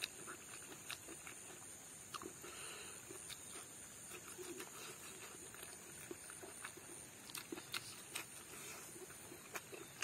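Close-up eating sounds: a man chewing and smacking his lips, with irregular wet clicks and fingers squelching through the pork and rice.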